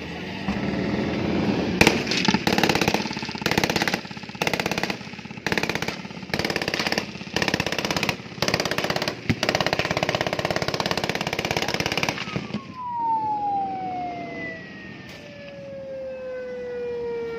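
Automatic rifle fire in a dozen or so short, rapid bursts, then the firing stops and a siren tone slides slowly down in pitch.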